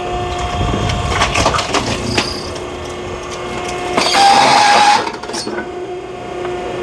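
Hydraulic log splitter running with a steady hum while oak wood cracks and crunches as it is split. A louder rushing strain with a higher whine comes for about a second a little past halfway.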